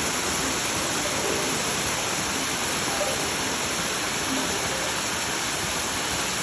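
Steady rushing noise, even and unbroken, with a few faint musical notes showing through.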